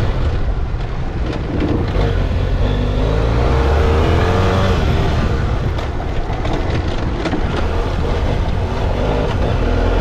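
Trail motorcycle engine running under throttle on a fast sand-and-gravel track, the engine note climbing about three seconds in and then holding steady, with scattered short clicks.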